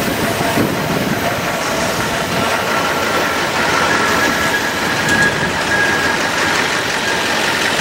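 Passenger cars of the CP Holiday Train rolling past, mixed with an engine idling nearby and wind buffeting the microphone.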